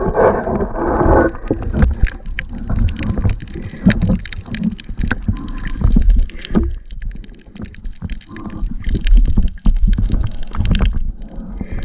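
Water gurgling and sloshing around an underwater camera, with irregular knocks from the spear and housing being moved.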